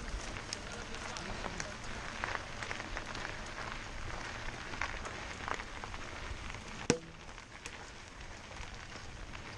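Mountain bike rolling over a dirt and stone trail: tyres crunching and crackling on the loose surface, with small rattles and clicks from the bike and one sharp knock about seven seconds in.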